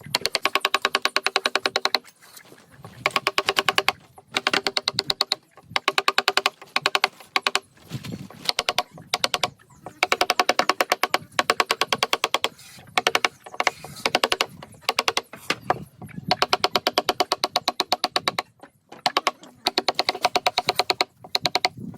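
Rapid, even tapping of a hammer on a carving chisel, with a metallic ring. It comes in runs of a second or two, broken by short pauses.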